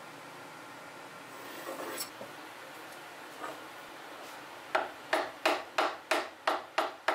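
A wooden mallet tapping a chisel into the end of a hardwood board: a quick, even run of sharp knocks, about three a second, starting a little past halfway. Before it come a few faint scrapes and clicks of tools on wood.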